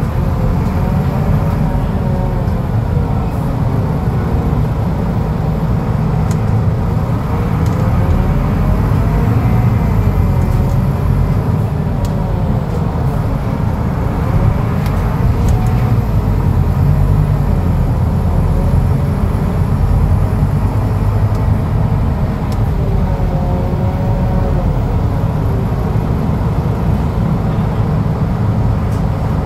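Scania DC09 five-cylinder diesel of a city midibus running under way, heard from inside the passenger cabin as a steady low rumble. A whining tone rises and falls in pitch several times as the bus speeds up and slows.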